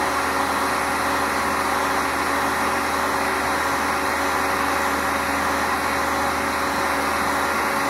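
Handheld heat gun running steadily: a constant blowing rush with an even motor hum, aimed at a plastic mounting bracket to soften it for bending.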